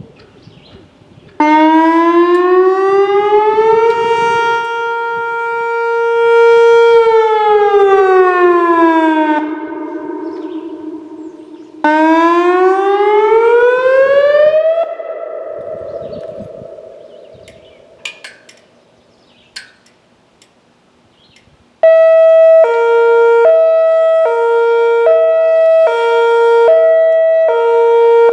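Whelen WPS 2802 electronic outdoor warning siren sounding test signals: a tone rises, holds and falls over about eight seconds; then a single rise that stops and trails off; then, after a pause, a two-tone hi-lo that alternates evenly to the end. Each stop leaves a tail that fades over a few seconds.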